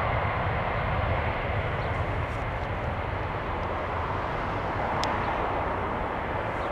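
Boeing 767-300ER's two jet engines at takeoff thrust during the takeoff roll, heard from behind: a steady, even roar with a faint high whine.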